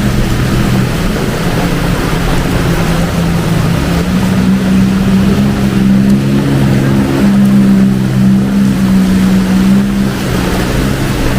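A motor vehicle's engine running close by, with a steady hum that lifts slightly about four seconds in and drops back near the end, over the hiss of heavy rain.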